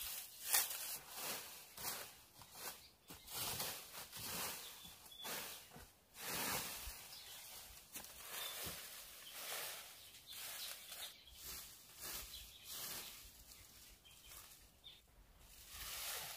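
Irregular rustling and scuffing noises: a string of short, uneven noisy strokes with no steady rhythm.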